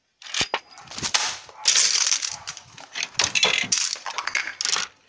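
Plastic dolls and dollhouse furniture being shaken and knocked about by hand. Two sharp clicks come early, then three or four bursts of crackly clattering and rustling.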